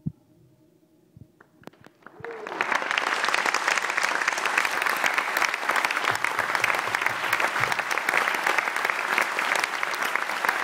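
Audience applause breaking out about two seconds in, after a quiet pause, and then going on steadily as a thick wash of clapping. A single sharp knock comes right at the start.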